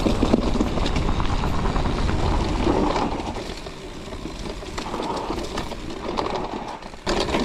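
Mountain bike running fast down a dirt single track: knobby tyres rolling over dirt and dry leaves, the bike clattering and ticking over bumps, with wind rumbling on the camera microphone. It eases off in the middle and picks up again with a knock near the end.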